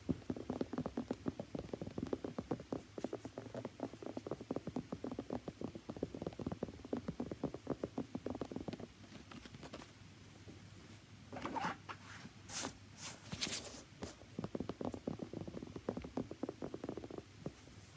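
Rapid tapping on a shoe, many light taps a second, pausing for a couple of seconds midway. A few short, brighter scratching sounds come in the middle before the quick tapping resumes.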